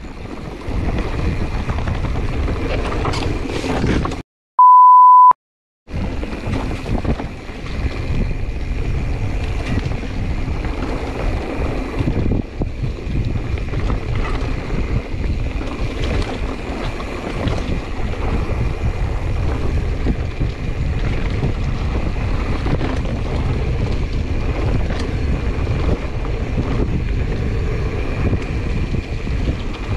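Wind rushing over the camera microphone and the rumble of a 2021 Giant Trance X 29 mountain bike rolling fast along a dirt trail, with small rattles from the bike. About four seconds in, the sound cuts out briefly and a short one-tone beep plays in the gap.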